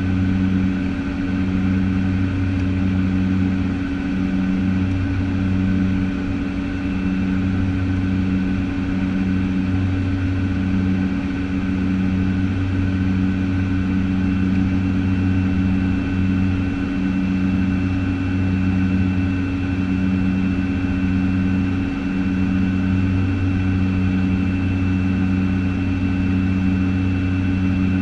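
The twin Pratt & Whitney PT6A turboprops of a Piper PA-31T Cheyenne II, heard from the cockpit in a steady cruise-power drone with a thin high whine over it. The low propeller hum throbs about once a second: the beat of two propellers turning at slightly different speeds.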